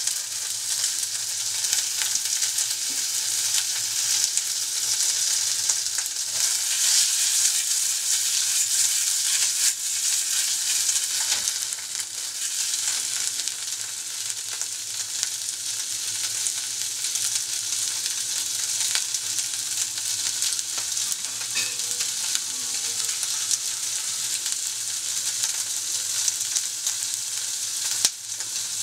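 Konjac cubes dry-frying in a stainless steel saucepan over a gas flame, sizzling steadily as their water cooks off. A sharp knock sounds near the end.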